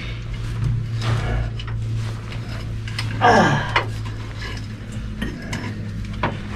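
Metal clinking and knocking of tools and parts over a steady low hum, with a short falling, sliding tone about three seconds in.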